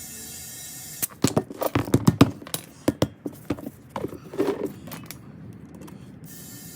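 A quick run of sharp knocks and clatter starting about a second in, followed by scattered knocks over the next few seconds, as a riding mower tire and wheel are worked at during bead seating.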